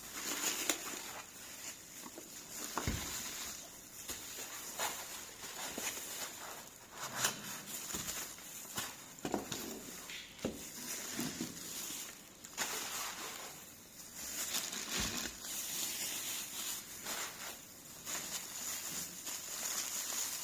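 Handling noise: scattered light clicks, knocks and rustles of objects, most likely the slow juicer's parts, being moved about, over a faint steady high hiss.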